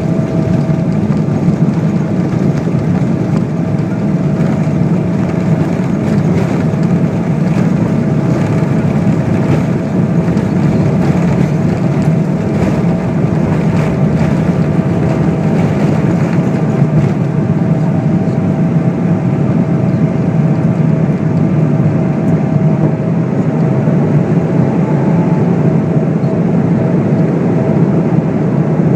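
Jet engines of a Boeing 777-300ER (GE90-115B turbofans) running at takeoff power: a steady deep rumble with a faint steady whine above it, mixed with airflow noise.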